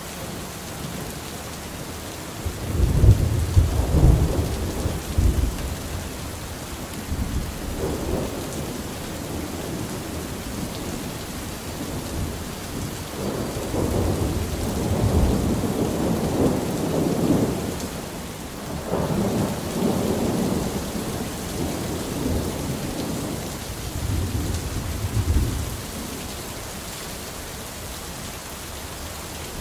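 Steady rain falling on garden plants and standing water, with several low rumbling swells lasting a few seconds each.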